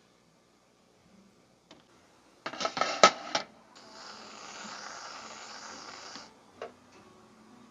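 A quick burst of loud clattering knocks about two and a half seconds in, then a steady spraying hiss for about two and a half seconds as whipped cream is dispensed from an aerosol can.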